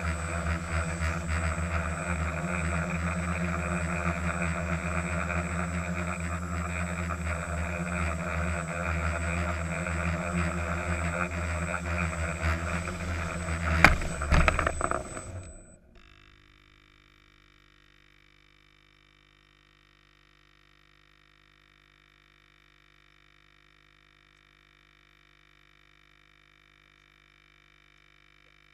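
Quadcopter's electric motors and propellers buzzing steadily with a high thin whine, heard from the camera mounted on the craft. About 14 seconds in it hits the ground with a sharp knock and a few smaller knocks, and the motors spin down and stop. A faint steady hum remains.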